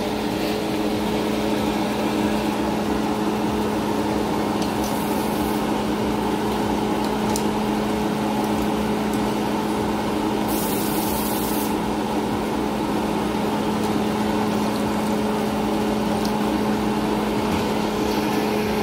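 Coconut-milk fish curry simmering in a wok on the stove, over a steady background hum, with a brief hiss about five seconds in and a longer one near eleven seconds.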